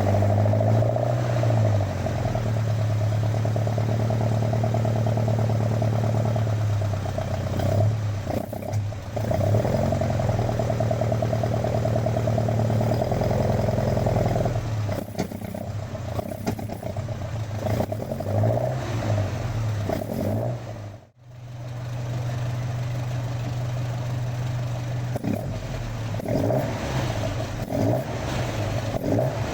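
Alfa Romeo Giulia Super 1300's twin-cam four-cylinder engine running as the car is driven, its revs rising and falling through the gears. The sound drops out for a moment about two-thirds of the way through.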